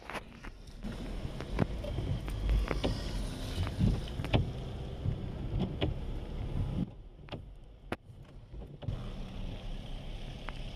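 Low rumble and wet hiss inside a car's cabin in the rain, with scattered sharp clicks and knocks; the hiss thins out for a couple of seconds past the middle.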